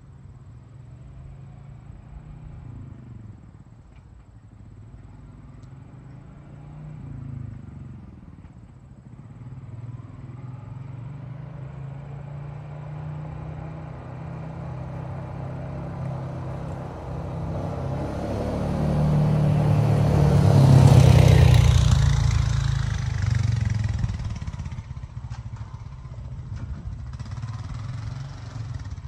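Honda Rancher 420 ATV's single-cylinder four-stroke engine running as the quad comes along the alley and past, its pitch rising and falling with the throttle. It grows louder to a peak about two-thirds of the way through, then fades.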